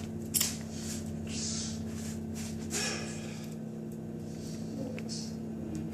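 Homemade slime activated with Tide laundry detergent being worked and stirred by hand, giving irregular soft squelching and sticky crackling with small clicks, over a steady low hum.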